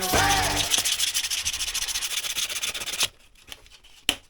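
Sanding the lacquer off a hickory axe handle: fast, even rasping strokes that stop abruptly about three seconds in, followed by two short knocks. The first moment holds the tail of music falling away.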